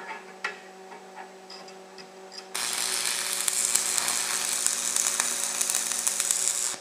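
A few clicks as a piece of rebar is set in place, then a stick-welding arc with a 7014 rod is struck on half-inch rebar about two and a half seconds in. It crackles and hisses loudly and steadily for about four seconds and cuts off suddenly near the end.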